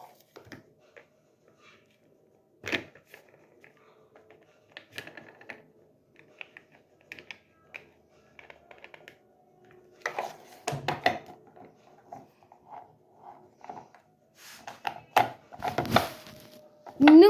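TEDi robot vacuum running, with a faint steady motor hum under irregular clicks and knocks that come in louder clusters later on.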